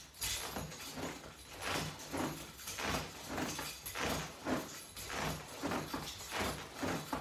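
A person doing sit-ups with resistance straps: rhythmic breathing and movement noise, a larger swell about every second and a bit, with smaller ones between.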